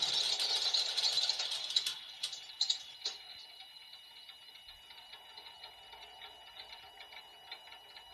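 Simulated aircraft engine sound from a scale-model sound module's small loudspeakers, mixed with the whirr of the small electric motors spinning the model Mosquito's propellers. About two seconds in the sound drops sharply, with a few clicks and rattles, as one engine shuts down. The remaining engine then runs on more quietly and steadily.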